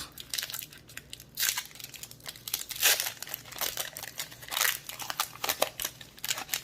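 Foil Pokémon booster pack wrapper crinkling and tearing as it is handled and opened, a run of irregular crackly rustles that are loudest about one and a half and three seconds in.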